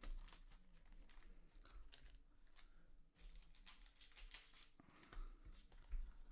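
Near silence with faint light clicks and rustles of small handling noises.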